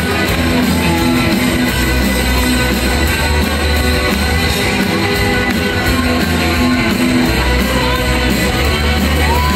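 Rock band playing live through a concert hall's PA, with electric guitars over sustained bass notes and drums.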